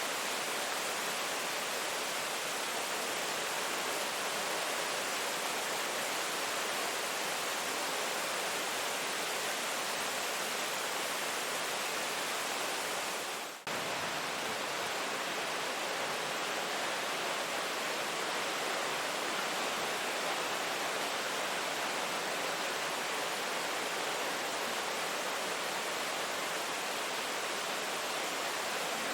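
Steady heavy rain: an even hiss of falling rain with no single drops standing out, dipping for a moment about halfway through.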